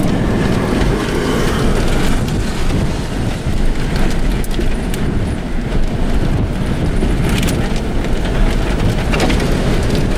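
Strong gusty wind buffeting the microphone: a dense, rumbling rush that swells and dips from moment to moment.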